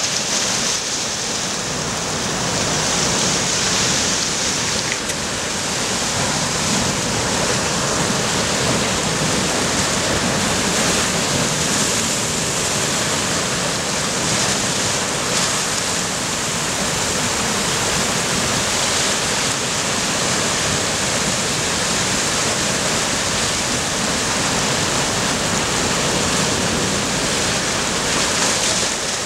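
Sea surf washing over shoreline rocks: a steady rushing noise without distinct single crashes.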